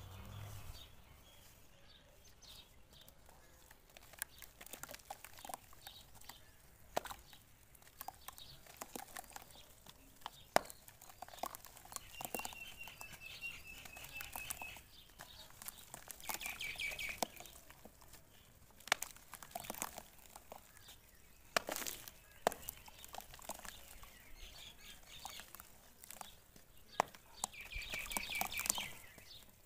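Hands crumbling clods of dry dirt into a basin of muddy water: irregular crackles and sharp clicks as the chunks break, with small splashes and drips. A bird chirps in quick runs a few times in the background.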